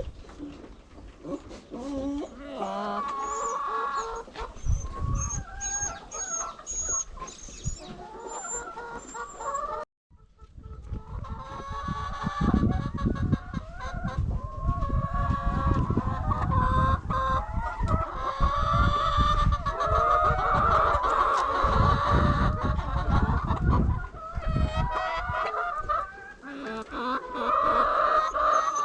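Flock of chickens clucking and calling over one another, with a rooster crowing. The sound drops out briefly about a third of the way in, and a low rumble runs under the calls through the middle.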